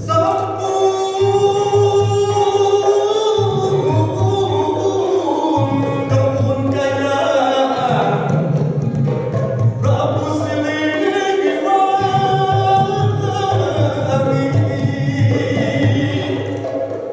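Gamelan ensemble music: a sustained melody line that glides and bends in pitch over the bonang kettle gongs and a steady low pulse from drum and gong.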